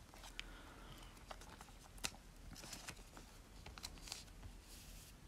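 Quiet handling of a trading card: scattered soft clicks and brief rustles, with one sharper click about two seconds in.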